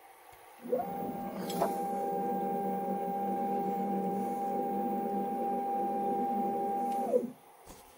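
DIY CNC lathe motor running with a steady whine. The pitch sweeps up as it starts, holds for about six seconds, then sweeps down and stops.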